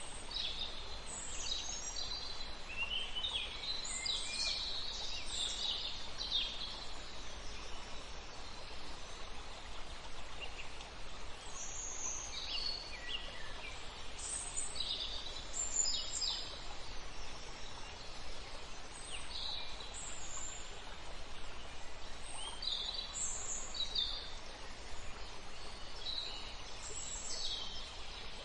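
Songbirds chirping and calling, with short high notes scattered all through, over a steady background hiss.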